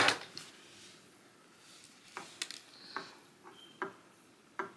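Light handling noise: a few short clicks and knocks, spaced about half a second to a second apart in the second half, with faint rubbing, as a small plastic phone tripod and its accessories are picked up and moved about.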